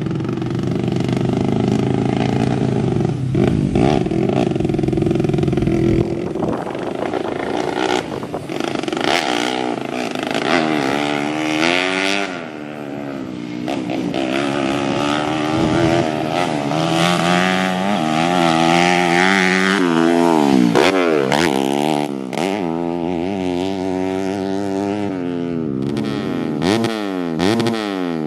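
Modified 130cc bebek (underbone) single-cylinder four-stroke engine in a grasstrack bike, ridden hard: the revs climb and fall back again and again through gear changes and throttle lifts, then drop away near the end as the bike pulls up. It is said not to rev out freely, which the rider puts down to the exhaust holding it back.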